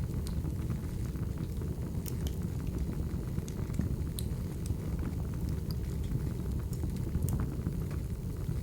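Wood fire burning: a steady low rumble of flames with irregular sharp crackles and pops from the burning logs.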